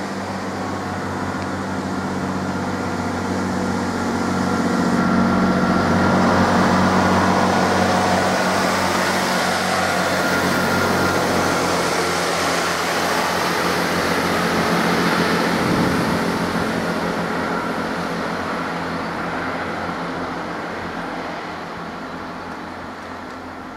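Chiltern Railways diesel multiple unit passing close by, its underfloor diesel engines droning steadily over the rumble of wheels on rail. It grows louder over the first several seconds, stays loud through the middle, then fades as the train draws away.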